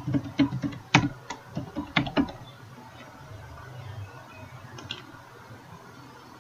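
Typing on a computer keyboard: a quick run of about ten keystrokes in the first two and a half seconds, then a couple of fainter clicks near the five-second mark.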